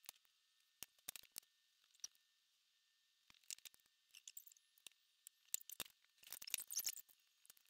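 Faint, thin clicks and rustles of hands working threads on a string-strung wooden frame, with a few sharper knocks. Near the end a denser cluster of rustling and knocks as a person gets up from a plastic chair and moves about.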